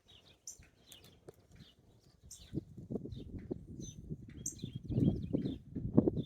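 Small birds chirping, short high notes scattered all through. From about halfway a low rumble rises under them and is loudest near the end.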